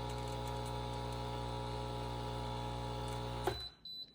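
CUSIMAX single-serve espresso machine buzzing steadily as its pump pushes coffee into the cup, then cutting off with a click about three and a half seconds in as the brew button is released.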